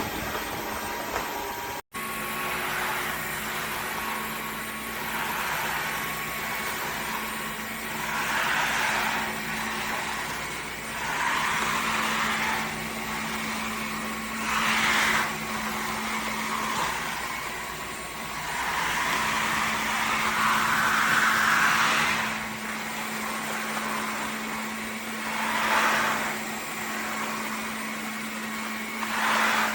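Dreame H12 Pro cordless wet-dry vacuum mop running in auto mode: a steady motor hum with a hiss that swells and fades every few seconds as it works across the floor. The sound cuts out for an instant about two seconds in.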